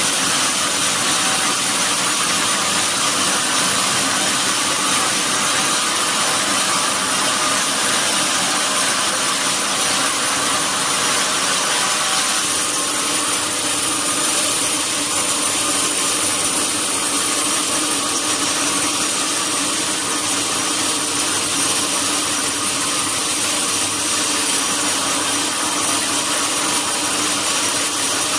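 Sawmill saw running steadily, with a constant high whine over a broad machine noise; its tone shifts slightly about twelve seconds in.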